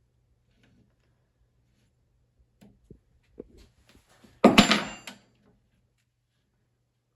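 A few light clicks and knocks, then a loud metallic clatter with a short ring about four and a half seconds in: hand tools and metal parts knocking together during motorcycle exhaust removal.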